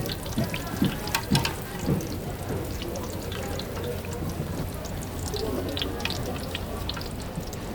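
Deep-frying oil sizzling steadily, with scattered sharp clicks and clacks.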